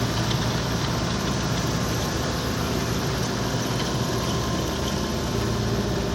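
An engine running steadily at idle: a constant low hum with a noisy wash over it.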